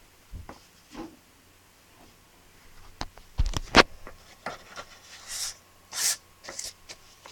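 Handling noises: scattered light clicks and taps, two louder knocks about three and a half seconds in, then two brief rustling scrapes near the end.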